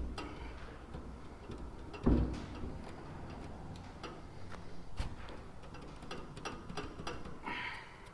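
Light, irregular metal taps as the locking ring of a Land Rover fuel tank's sender unit is tapped round to loosen it. There are louder knocks about two seconds in and about five seconds in, and a brief scrape near the end.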